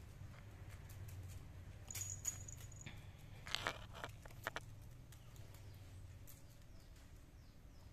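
Quiet room tone with a steady low hum and a few faint, light clicks and taps, the loudest a short cluster about three and a half seconds in, plus a brief thin high ring just before two seconds.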